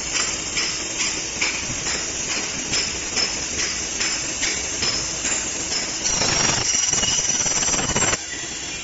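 An aluminium alloy wire loop making machine running, with a regular clicking about twice a second as it forms wire into a loop. About six seconds in it gives way to a louder steady rush for about two seconds, which cuts off suddenly.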